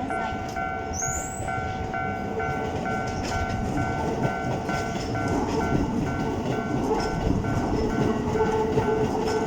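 Japanese level-crossing warning bell ringing about twice a second. From about halfway through, a Keikyu New 1000 series train's running noise and a steady hum come up beneath it, growing louder as the train approaches.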